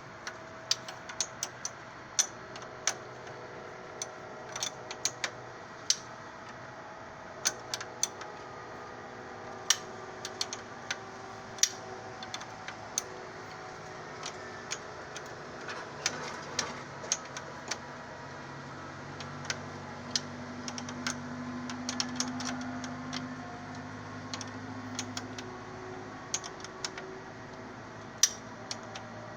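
Irregular sharp clicks and taps of hand tools on metal fittings, over a steady background hum with a few held tones.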